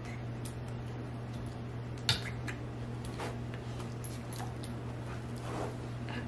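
A dog climbing onto a person's lap, with faint scuffles and clicks and one sharp click about two seconds in, over a steady low hum.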